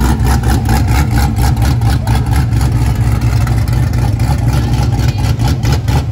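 Chevrolet Nova SS's V8 running at low speed as the car rolls past, a loud, deep exhaust pulsing rapidly.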